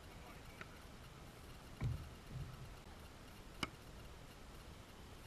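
Quiet open-air background with a few faint dull knocks and one sharp click about three and a half seconds in.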